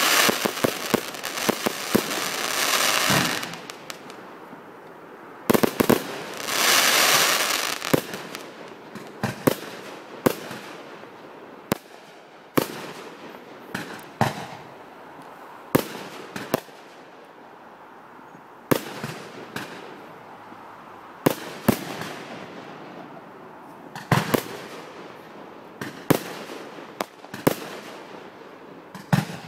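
Aerial fireworks going off close by: dense crackling and hissing in the first three seconds and again around six to eight seconds in, then single sharp bangs every second or two as shots fire into the sky.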